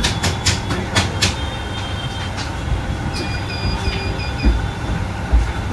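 Steady rumble of street traffic. A few sharp clicks come in the first second or so, and a run of short high beeps comes near the middle.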